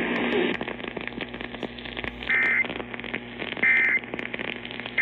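Steady weather-radio static hiss broken by two short two-tone data chirps about 1.3 s apart, with a third beginning at the end. This is the Emergency Alert System SAME end-of-message burst sequence that closes a NOAA Weather Radio alert.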